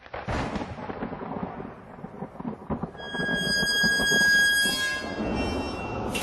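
Low rumbling, crackling noise like a thunderstorm. About three seconds in, a high steady tone with overtones joins it and fades out before the end.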